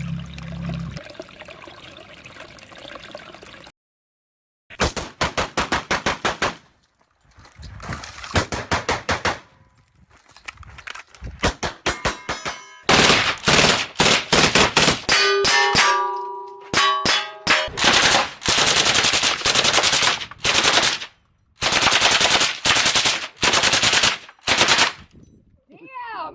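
Rapid strings of pistol shots fired several a second, broken by short pauses. In the middle, struck steel targets ring. The first few seconds hold only a faint, even hiss before the shooting starts.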